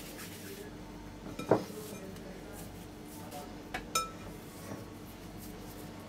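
Two sharp knocks of kitchenware, the glass mixing bowl or the enamel baking tray, as cookie dough balls are rolled and set down: a loud one about a second and a half in and a second near four seconds with a short ring.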